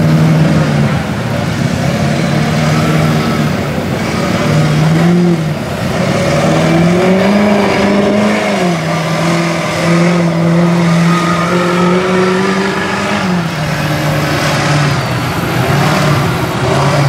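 Engine of a lifted Chevrolet Silverado mud truck on giant tractor-tread tires, revving under load as the truck churns through deep mud. The engine note climbs and falls several times, holds high for several seconds in the middle, then drops back.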